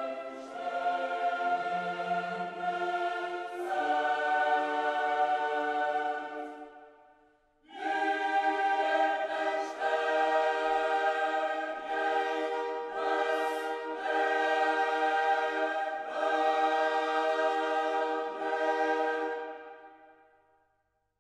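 Background music of choir-like voices holding slow, sustained chords, breaking off briefly about seven seconds in, then resuming and fading out near the end.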